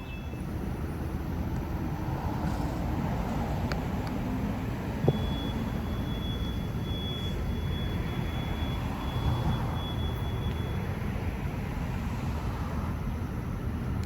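Train running past on the electrified Northeast Corridor: a steady low rumble that builds over the first couple of seconds, with a sharp click about five seconds in and a faint high steady whine through the middle.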